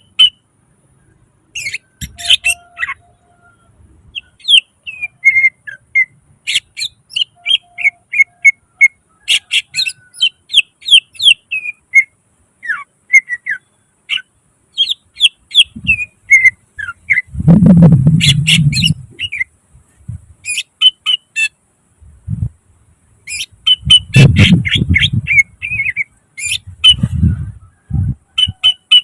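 Cucak ijo (green leafbird) singing in rapid runs of varied chirps and whistled notes. Louder, harsh rasping bursts come about midway and again near the end.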